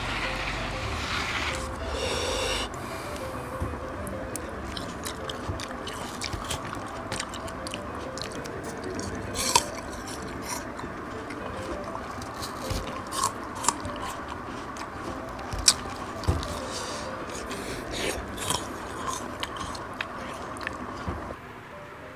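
Someone eating: chewing, with scattered small clicks and scrapes, two of them sharper, over faint background music.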